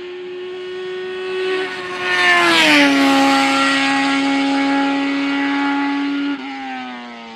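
Hillclimb race car passing at speed, its engine holding a steady high note. The pitch drops as it goes by, at its loudest about two and a half seconds in, then the engine note falls away near the end.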